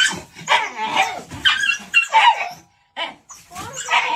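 Dog barking repeatedly, a quick run of short barks and yips.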